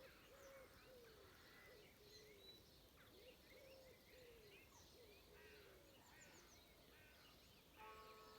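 Faint dawn chorus: several songbirds chirping and whistling, over a low call repeated about twice a second. Near the end a church bell strikes and rings on.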